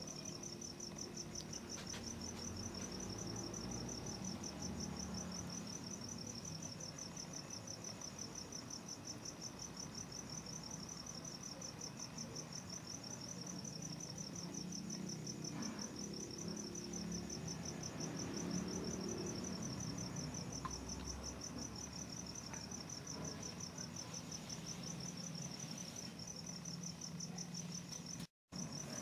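Crickets chirping in a steady, rapidly pulsing high trill, over a low background rumble. The sound cuts out for a split second near the end.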